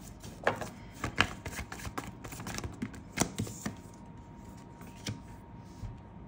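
Tarot cards being drawn and laid down on a table: scattered light taps and short sliding scrapes, the sharpest about a second and about three seconds in.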